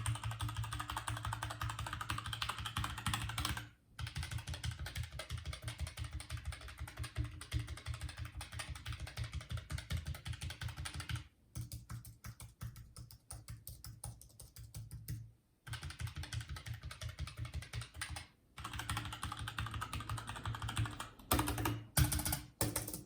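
Rapid, continuous typing on a computer keyboard, a dense run of key clicks with a few short pauses.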